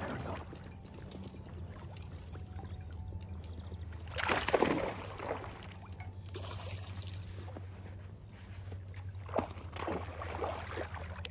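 Hooked bass splashing and thrashing at the water's surface as it is reeled in. There is a big splash about four seconds in and several quicker splashes near the end.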